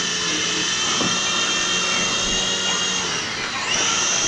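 Small electric motors of a toy remote-control helicopter whining steadily at a high pitch. The whine dips briefly about three seconds in, then rises back up as the motors speed up again.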